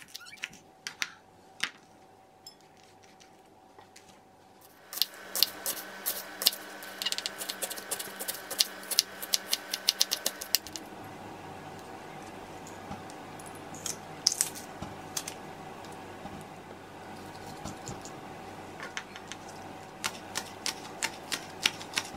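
Kitchen knife chopping vegetables on a wooden cutting board: quick clicks of the blade striking the board in runs, sparse at first and rapid from about five seconds in. A steady hum with a few held tones sits underneath from about five seconds on.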